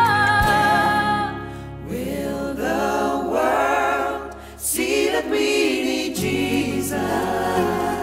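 Christian gospel song: voices singing a melody over instrumental backing, with a brief drop in level about four and a half seconds in.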